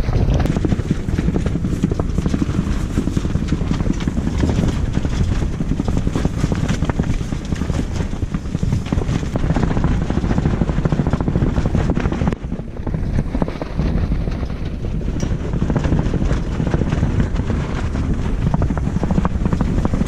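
Strong storm wind beating on a Kamp Rite tent cot's rainfly, the fabric flapping and rattling rapidly, with heavy wind buffeting on the microphone. It eases briefly about twelve seconds in.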